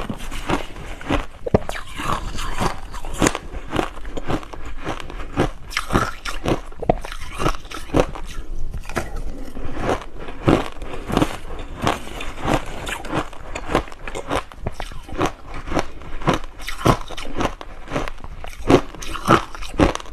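A person chewing crushed ice, a close, continuous run of sharp crunches and cracks, with a short lull about eight seconds in.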